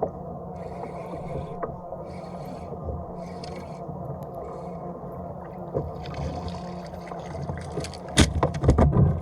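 Sounds of a fishing kayak on the water: a steady wash with a brief hiss about once a second, and scraping against the hull. About eight seconds in comes a loud run of knocks and bangs.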